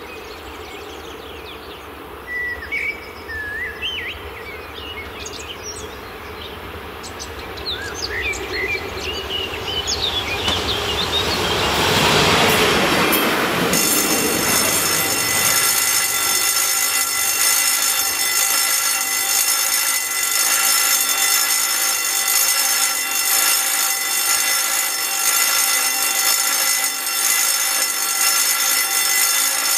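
Birds chirp, then a diesel railcar passes over the level crossing with a rush of wheels and engine that swells and fades, loudest about twelve seconds in. As it passes, the crossing's electric warning bell starts suddenly and keeps up a steady, rattling buzz, sounding for a second train coming.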